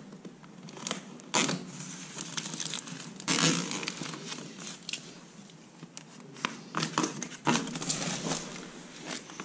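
Foil-insulated flexible ventilation duct crinkling and rustling as it is squeezed and worked by hand, with scattered clicks and a louder crinkle about three and a half seconds in.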